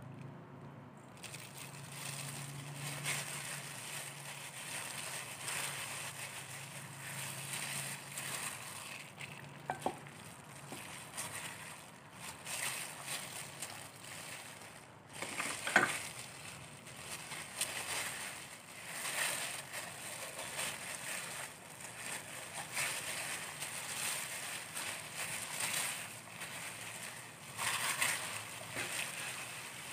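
Clear plastic gloves crinkling and rustling as hands rub seasoning into a raw whole chicken. One sharp knock about halfway through.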